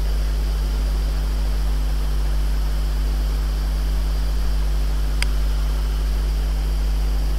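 Steady low electrical hum and hiss in the background of the recording, with one short click about five seconds in.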